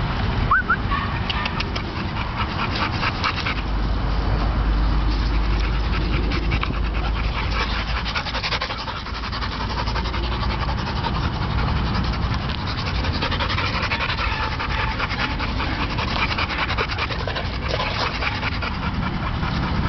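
A dog panting and moving about close by, with a short rising whine about half a second in.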